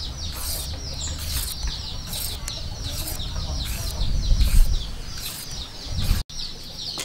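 Metal hand peeler scraping strips off a raw carrot in quick repeated strokes, about two a second, over a low rumble that is strongest about four seconds in. The sound cuts out for a moment just after six seconds.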